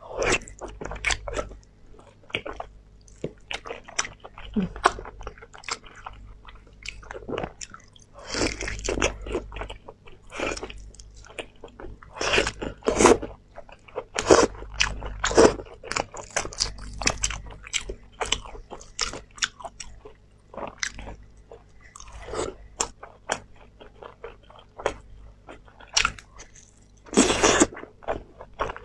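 Close-miked biting and chewing of sauce-braised lamb ribs, meat pulled off the bone by mouth: irregular wet smacks and sharp clicks, with a few louder, longer bites.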